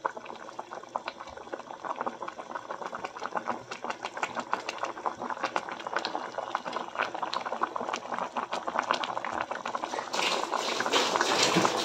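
A pot of mắm kho, tilapia braised in fermented fish sauce, boiling hard: a dense, rapid bubbling and popping that grows louder about ten seconds in.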